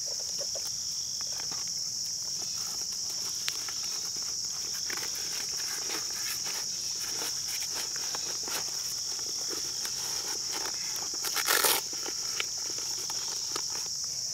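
Steady high-pitched chorus of insects, with scattered light clicks and rustles from the plate carrier being handled, and a short louder rustle about eleven seconds in.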